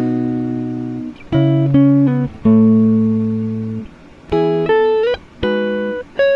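Background music: a slow plucked-string melody of single sustained notes that fade away, several sliding up into the next note.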